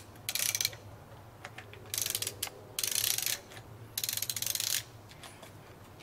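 Socket ratchet wrench clicking in four short runs of rapid pawl clicks as the handle is swung back between strokes, loosening a 26 mm top nut on a suspension fork stanchion.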